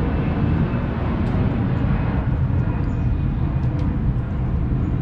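A steady low rumble, with a few faint sharp clicks as a dog gnaws a piece of frozen deer carcass, teeth on meat and bone.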